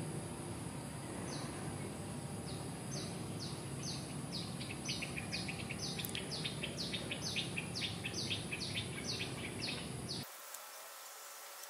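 Outdoor ambience with a steady high insect hum and a bird giving a quick series of short, high, downward-sliding calls, about two to three a second and getting quicker. About ten seconds in, the hum, the calls and the low background cut off abruptly, leaving faint hiss.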